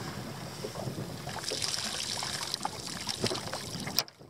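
Wind buffeting the microphone over small waves lapping and splashing against the boat's hull, with scattered light knocks. A sharp snap comes about four seconds in, and then the wind noise drops away abruptly.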